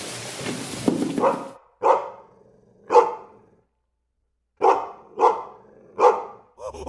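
Dog barking: six short single barks, three and then, after a pause of about a second, three more. A hiss of background noise runs under the first bark and stops.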